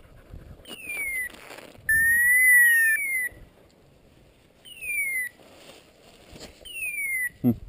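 Short whistles that fall in pitch, repeated about every two seconds. A louder, held whistle comes in about two seconds in and lasts about a second. Near the end there is a single sharp knock.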